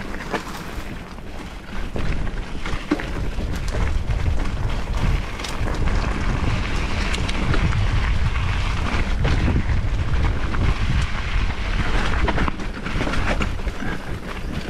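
Mountain bike being ridden over a dirt trail: wind buffets the microphone with a steady low rumble over tyre noise, with scattered sharp clicks and rattles from the bike.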